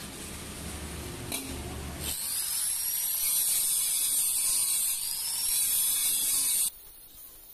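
Angle grinder with an abrasive disc grinding down a TIG weld on stainless steel: a steady, high-pitched whine that starts about two seconds in and cuts off suddenly near the end. A low rumble comes before it.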